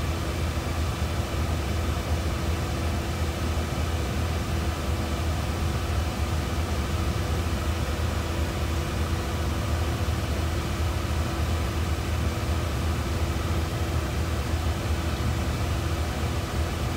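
Steady low machinery hum with a few faint steady tones above it, unchanging throughout.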